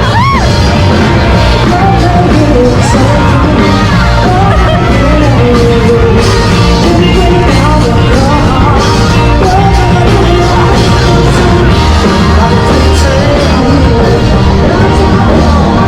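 Loud rock music with a singer.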